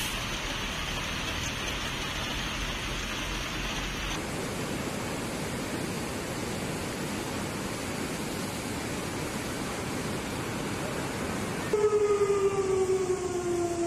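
Steady hiss of rain and water on a flooded street, changing after about four seconds to the even rush of a muddy river in flood. Near the end the noise jumps louder, with the pour of a waterfall-like torrent, and a long tone that slowly falls in pitch comes in over it.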